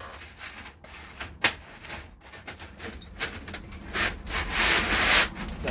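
Stiff plastic packaging sheets rustling and crinkling as they are handled and unfolded, loudest from about four to five seconds in. A sharp click about a second and a half in.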